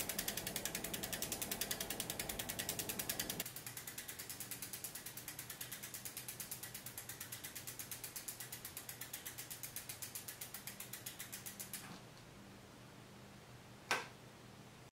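Rear hub of a Salsa Fargo mountain bike on a work stand ratcheting as the wheel spins freely: a fast, even run of freehub pawl clicks. The clicking gets quieter about three seconds in and stops about twelve seconds in, and a single sharp knock follows near the end.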